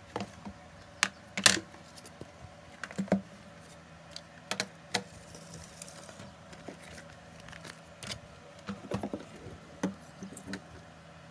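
Small objects, pens and bottles among them, being picked up and set down on a hard desktop: irregular light clicks and knocks, the loudest about a second and a half in, over a faint steady hum.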